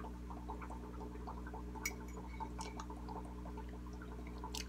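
Aquarium air pump running with a steady low hum and a continuous patter of bubbling from the fish tank's bubbler. A fork clinks sharply on the plate twice, about two seconds in and near the end.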